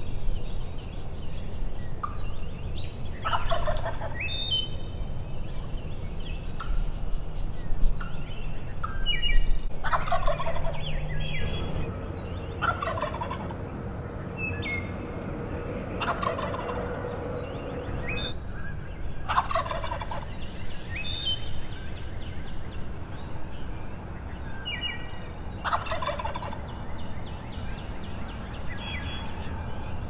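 Several eastern wild turkey gobblers gobbling in turn, about half a dozen gobbles, each a rapid falling rattle. Small songbirds chirp in between.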